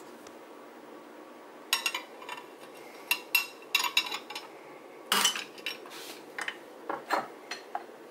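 Short clusters of sharp metallic clicks and clinks as a Kukko puller's threaded spindle is turned down against a speedometer needle hub, drawing the tightly press-fit needle up off its thin shaft until it pops off. The loudest click comes about five seconds in.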